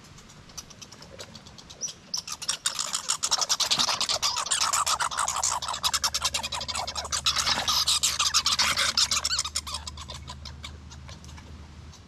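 A squirrel gnawing a nut shell: fast, crunchy scraping that starts about two seconds in and fades out near the end.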